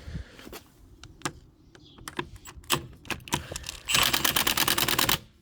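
Ratchet with a 19 mm socket working on wheel nuts: scattered metal clicks and knocks, then a loud, fast, even run of ratchet clicks lasting about a second near the end as the nut is spun off.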